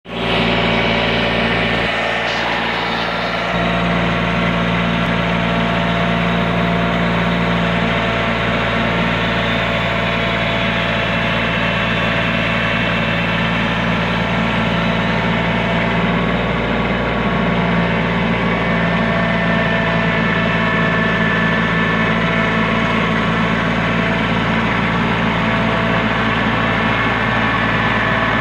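Toro Dingo compact tracked utility loader's engine running steadily as the machine is driven with a bucket of gravel. Its low note shifts briefly about two seconds in and again around sixteen seconds in.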